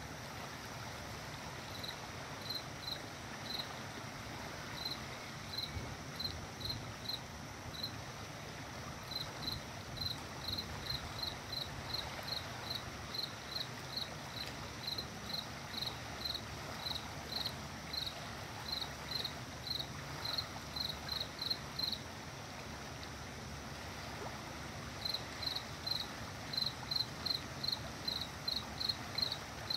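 A cricket chirping in short, even-pitched chirps, two or three a second, with a break of a few seconds about three-quarters of the way through, over a steady low background rumble.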